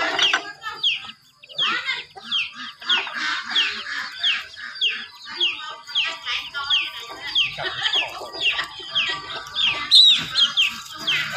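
Chickens calling: a steady stream of short, high calls, each falling in pitch, two or three a second.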